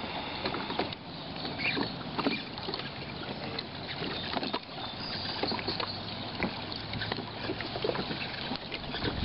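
Outdoor wind and choppy-water noise: a steady rushing hiss with many small irregular clicks and slaps scattered through it.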